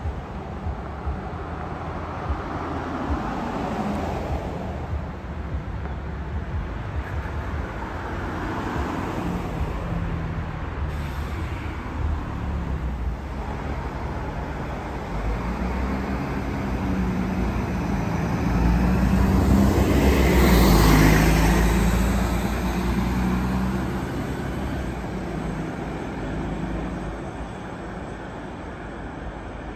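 A diesel city bus drives past close by. Its engine and tyre noise build as it approaches, peak about two-thirds of the way through, then fade as it pulls away. Light road traffic runs underneath before and after.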